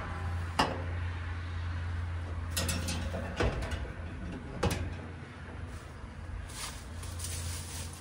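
Sheet-metal access panel and screws of a Goodman heat pump being handled and taken off: a few sharp knocks and clicks in the first five seconds, over a steady low hum.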